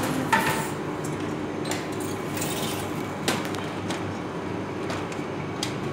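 Kitchen clatter: a few sharp clinks and knocks of dishes and utensils over a steady background hum. The loudest knocks come about a third of a second in and just after three seconds.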